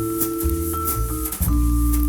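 Jazz trio playing: a Musser vibraphone holding ringing chords over a bass line of low notes, with short cymbal strokes from the drum kit.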